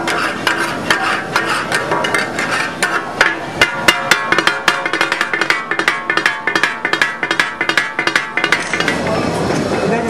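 Metal spatulas chopping and striking on a large flat iron griddle (tawa), a fast, rhythmic metallic clatter with ringing, that stops near the end.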